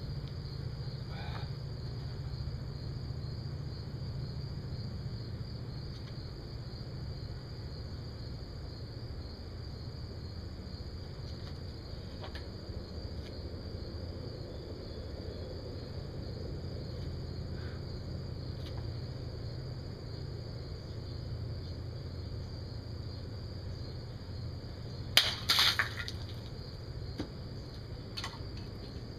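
Steady low background hum, then near the end a sharp metallic clash with a brief rattle as a Bear Grylls Parang machete blade cuts through two hanging aluminium drink cans.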